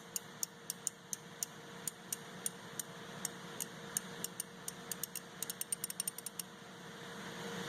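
Stanley black chrome 120-tooth, 1/2-inch-drive ratchet being worked back and forth, its pawl running over the fine teeth in small sharp clicks. The clicks come a few a second, run faster for about a second near the middle, then stop.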